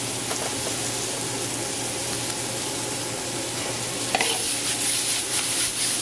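Chicken and peppers sizzling steadily in a skillet of marinara sauce. About four seconds in, a series of sharp clicks and scrapes of a utensil stirring in the pan, and the sizzle grows louder.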